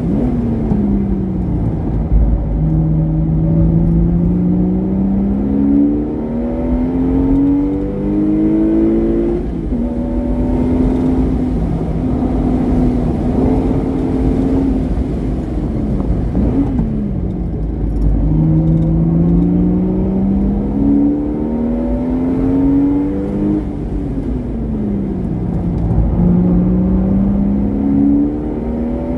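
Porsche Boxster S engine with a modified exhaust being driven hard on track. Its pitch climbs in steps as it upshifts, drops away when the throttle is lifted for braking, and climbs again. This happens three times, with a quick blip and fall about halfway through.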